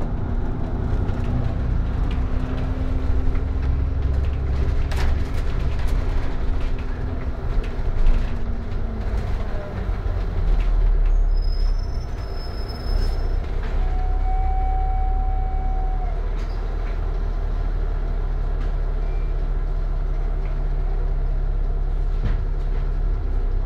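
Double-decker bus engine and drivetrain heard from inside, with a whine that drops in pitch and fades as the bus slows to a halt about ten seconds in. The engine then idles with a deep, steady drone, and a brief squeal comes partway through.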